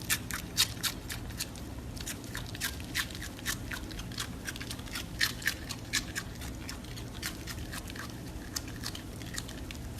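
A small pet chewing crunchy food: a run of crisp, irregular crunches, a few a second, louder in the first second and around the middle.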